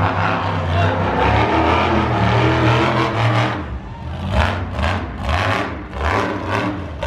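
Monster truck engine running loud and steady, then revving hard in a quick series of blips, about two a second, from about halfway through as the truck launches over crushed cars.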